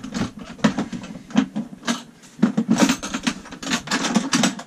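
Nature's Head composting toilet's plastic bowl and lid being handled and fitted: a run of irregular knocks, clicks and rattles.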